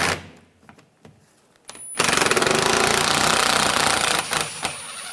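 Cordless impact driver with a 10 mm socket hammering a bolt loose for about two seconds, then running more lightly as the bolt backs out.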